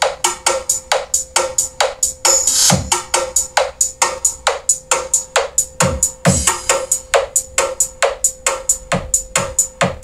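Dance music with a fast drum-machine beat, about four strikes a second with occasional heavy bass hits, played through homemade column speaker boxes.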